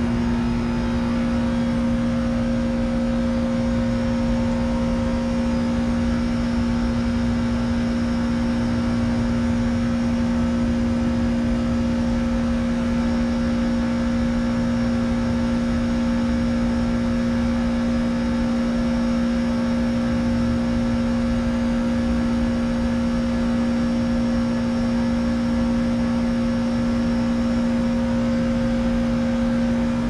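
2013 Trane XB13 4-ton heat pump outdoor unit running steadily: a constant compressor hum with a strong, even tone over a low rumble.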